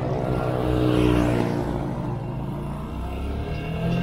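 Skygo Boss 150 motorcycle engine pulling away from a stop and accelerating. Its pitch rises again near the end.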